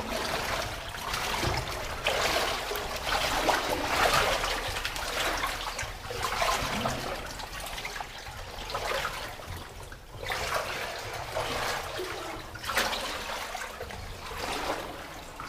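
Water sloshing and swishing in uneven surges every second or two as people wade through a flooded tunnel.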